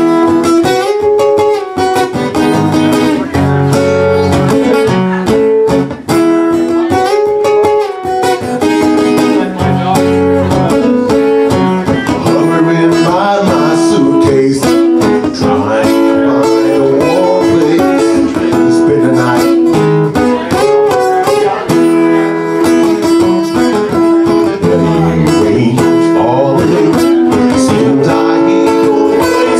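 Acoustic guitar strummed steadily through a PA, with a man singing over it.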